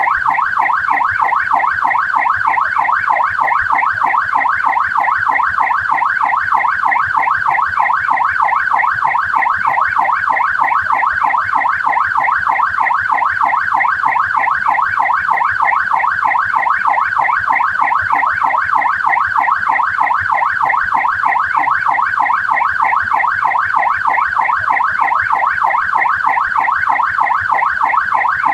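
Australian police car siren on a fast yelp, its pitch sweeping rapidly up and down several times a second without a break.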